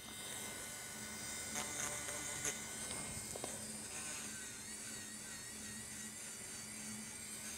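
Electric nail drill (e-file) running at a steady speed with a fine cone-shaped bit working along the cuticle line of a nail: a faint, even motor whine with a few small ticks.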